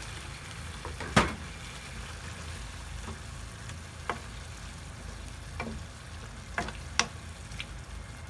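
Chicken in tomato sauce cooking in a pan with a low, steady sizzle, while a spoon stirs and taps against the pan a few times, the sharpest tap about a second in.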